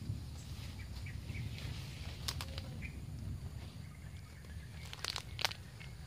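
Rustling of grass and leaves with a few sharp clicks and snaps as hands set a string-and-twig bird trap on the ground. The loudest snap comes about five and a half seconds in, over a low rumble.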